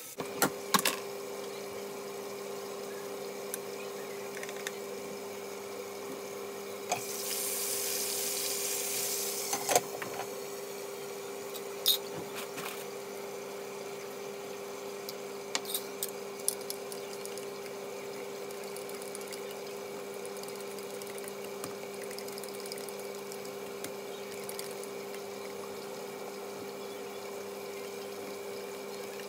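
A steady hum throughout, with a brief rush of water for about three seconds near a third of the way in and a few sharp clinks and knocks.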